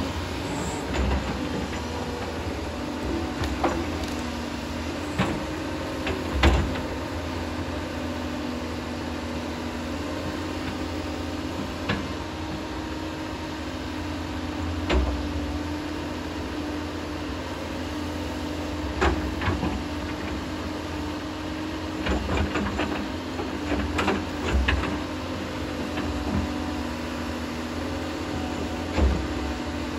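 Doosan hydraulic excavator's diesel engine running steadily under working load, with a dozen or so short, sharp knocks and clanks scattered through it.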